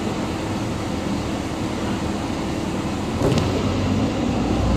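City bus engine heard from inside the cabin, running with a steady low hum. About three seconds in there is a short sharp click, and then the engine grows louder as the bus moves off.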